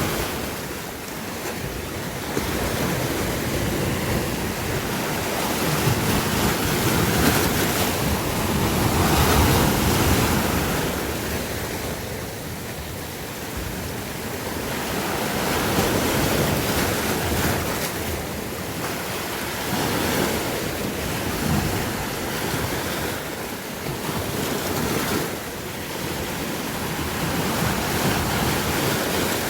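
Sea waves washing in and drawing back in a continuous rush that swells and ebbs every several seconds, with some wind on the microphone.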